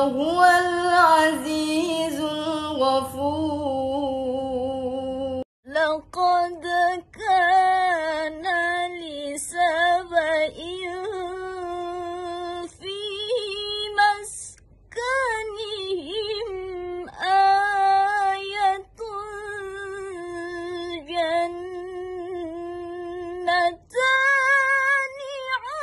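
Women's solo, unaccompanied Qur'an recitation in the melodic tilawah style: long held, ornamented notes in phrases with short breaks between. About five seconds in, one reciter's voice cuts off and another woman's recitation begins.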